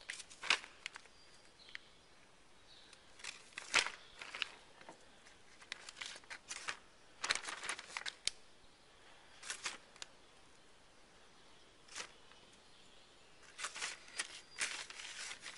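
Clear plastic zip-top bag crinkling in short, scattered rustles as it is handled and soft plastic fishing baits are put into it.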